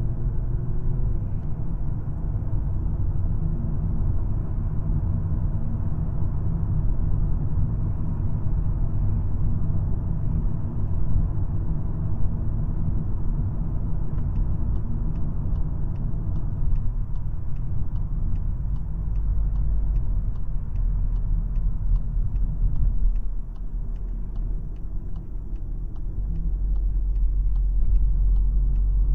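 2022 VW Golf R's turbocharged four-cylinder engine and road noise on the move, a steady low rumble. It eases off about two-thirds of the way through and builds again near the end. From about halfway a steady light ticking runs alongside, about two ticks a second.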